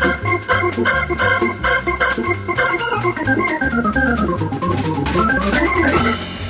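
Organ music with drums: organ chords over a steady, regular beat, with a falling run of notes about three to four seconds in and a rising run shortly before the end.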